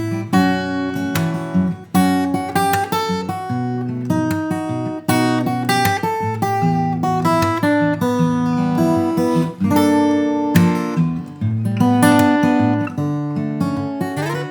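Alvarez MG75ce acoustic guitar, a grand auditorium body with a solid cedar top and solid rosewood back and sides, played as a flowing run of chords and single notes with occasional strums.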